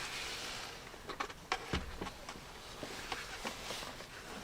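Scattered light clicks and knocks of door-panel parts being handled, with a soft rustle at the start and a low thump just under two seconds in.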